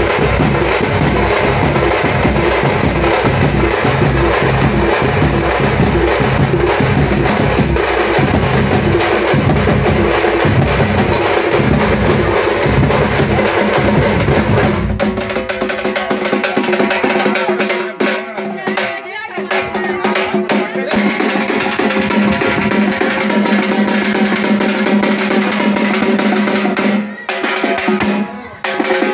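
A street drum troupe beating large bass drums and smaller side drums with sticks at a fast, steady rhythm. About halfway through, the deep low beats drop away and a steady held pitched tone sounds with the lighter drumming.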